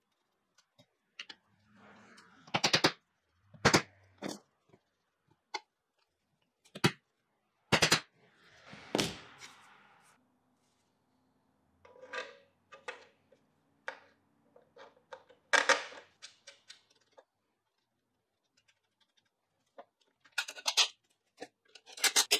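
Sporadic knocks, taps and clicks as a plywood chair backrest and its steel flat-bar frame are handled and fitted together, with quiet gaps between them.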